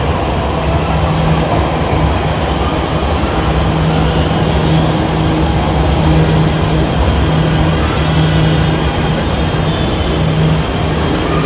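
Jakarta MRT train running along the station platform: a steady low hum over a dense rumble of wheels.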